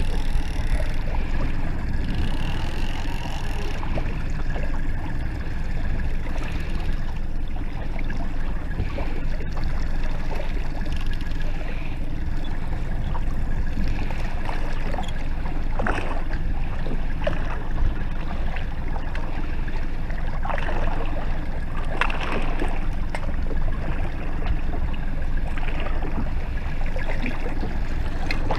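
Small outboard motor running steadily at trolling speed, with water rushing and churning along the boat's hull. A few brief louder splashes stand out about sixteen and twenty-one seconds in.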